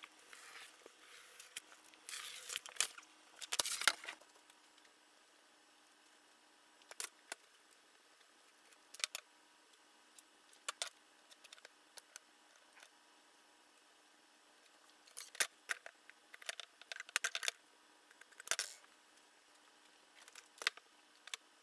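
Light clicks, taps and brief scrapes from pine frame pieces and a small hand tool being handled on a wooden workbench, coming in scattered clusters.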